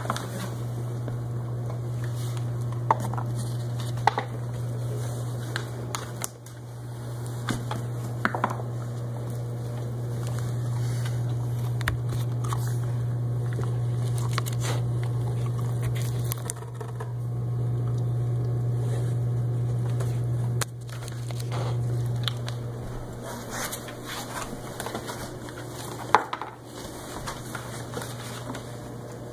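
A dachshund moving about inside a maze of cardboard boxes, with scattered knocks and scratchy rustles of cardboard as it hunts for carrot pieces. A steady low hum runs under it.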